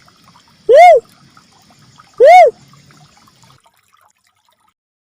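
Recorded lure call of a ruddy cuckoo-dove (uncal merah): two loud hooting notes, each rising then falling in pitch, about a second and a half apart, played so loud that they clip.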